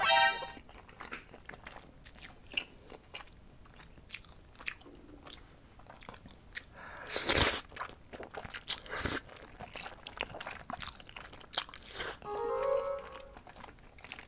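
Close-miked eating of braised chicken with aged kimchi and glass noodles: soft wet chewing clicks throughout, with a loud slurp of noodles about seven seconds in and a shorter one about two seconds later.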